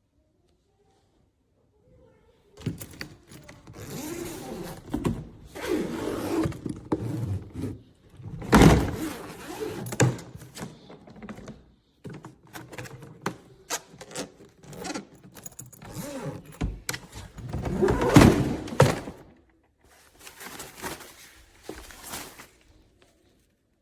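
Handling noise: knocks, thuds and scraping of objects being moved about, loudest about 8 seconds in and again about 18 seconds in.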